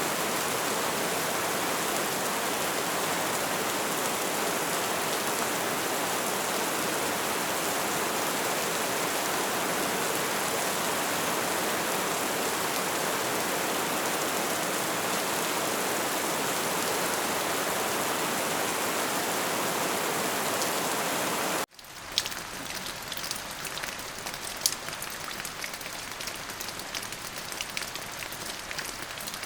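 Steady, dense rain hiss. About three-quarters of the way through it cuts abruptly to a quieter rain in which separate drops tick sharply on a surface.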